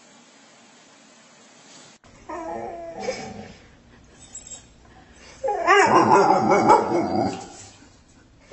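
Dog whining and yipping in two bouts of wavering, pitched calls: a short one about two seconds in, then a louder, longer one about two seconds later. Before the first bout there is only a steady hiss.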